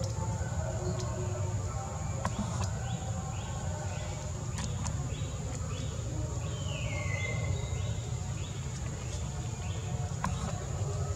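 Outdoor ambience: a steady low rumble under a steady thin high drone, with a run of short high chirps, about two or three a second, in the middle and one falling whistle partway through.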